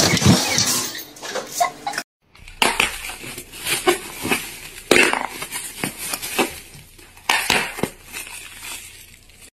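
Thin clear plastic bag crinkling in sharp, irregular crackles as it is handled and bitten by a cat. The crinkling follows a short noisy stretch and a brief dropout about two seconds in.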